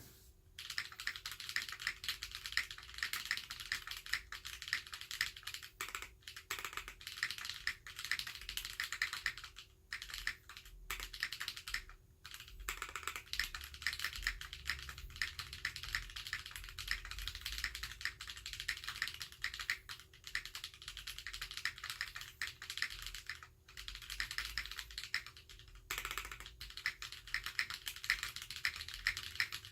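Steady fast typing on a Fjell mechanical keyboard fitted with Holy Panda tactile switches: a dense stream of key clacks, broken by a few short pauses.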